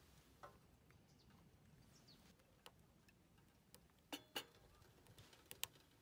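Near silence broken by a few sharp clicks: two close together about four seconds in, and one more near the end.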